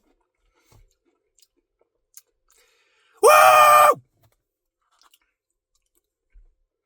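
A man's voice gives one loud, brief, high whoop about three seconds in, rising in pitch at its start. Around it are only a few faint small clicks.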